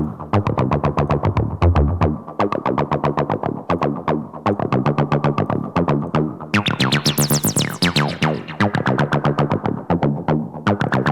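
TB-303-style acid synth bassline, a fast run of repeating notes, played through distortion with a lowpass "focus" filter ahead of it narrowing the band being distorted. The sound stays dark and narrow for the first half, opens up with a bright sweep up and back down a little past the middle, then settles somewhat brighter.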